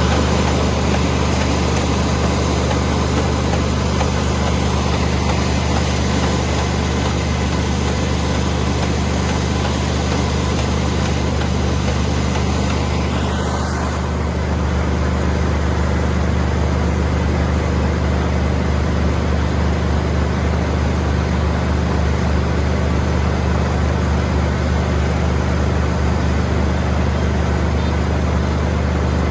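Kubota combine harvester running steadily: a diesel engine hum under a constant mechanical hiss from the machinery. The higher hiss drops about halfway through.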